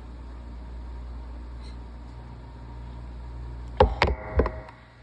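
A person's forceful sneeze about four seconds in, a few sharp loud bursts within less than a second, over a steady low hum.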